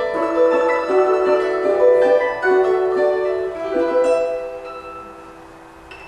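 A trio of plucked string instruments, one of them a table zither, playing live music. A final chord about four seconds in rings and dies away.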